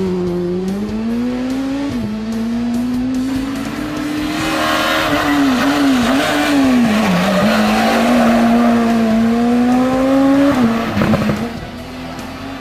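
Renault Clio Super 1600 rally car's engine revving hard at full throttle, the pitch climbing through each gear and dropping sharply on lifts and downshifts into a bend. It grows louder as the car draws near, peaking about ten seconds in, then drops away.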